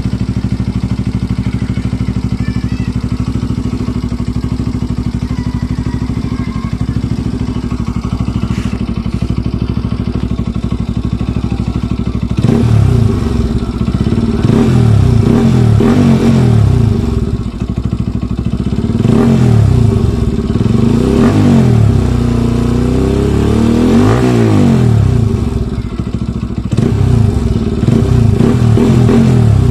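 Kawasaki RS200 single-cylinder engine through an aftermarket Akrapovic M1 exhaust, idling steadily at first, then revved in repeated blips from about halfway through, the pitch rising and falling with each one.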